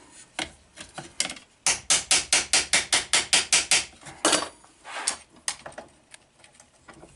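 Hammer peening over a rivet on a window regulator's pivot held in a vise, swaging the rivet head tight. A few scattered taps, then a quick even run of about fourteen blows, some six a second, starting about a second and a half in, followed by a few single taps.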